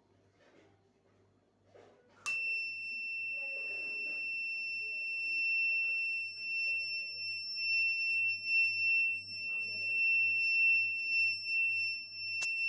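Door/window security alarm sounding a steady, high-pitched continuous tone, switching on with a click about two seconds in after a few faint handling noises. A second click near the end leaves the tone running.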